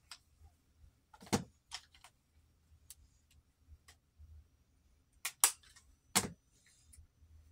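Makeup palettes and compacts being handled: about six separate sharp clicks and knocks as cases are snapped open or shut and set down on the vanity, the loudest about five and a half seconds in.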